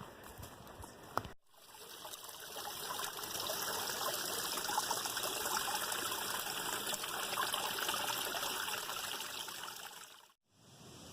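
A sharp knock about a second in, then a small stream trickling and splashing over rocks fades in, runs steadily, and fades out near the end.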